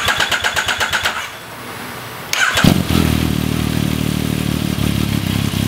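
2014 Yamaha MT-09's three-cylinder engine cranking on its electric starter for about a second and a half, then catching about two and a half seconds in and settling into a steady idle. The cam chain tensioner has been loosened to let the cam chain noise be heard.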